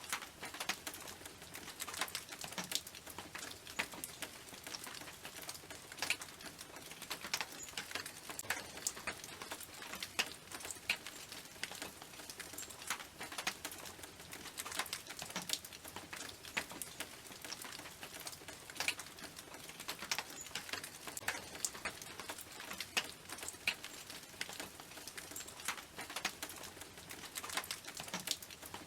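Rain falling on a tin roof: a steady patter of drops with many irregular sharp ticks as single drops hit the metal.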